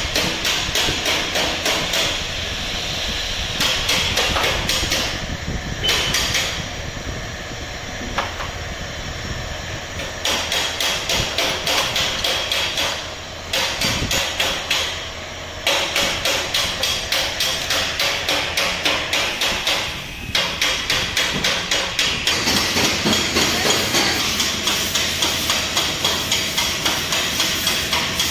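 Hand ratchet wrench clicking in rapid, even runs as bolts are worked loose during an engine teardown, with a few short breaks between runs.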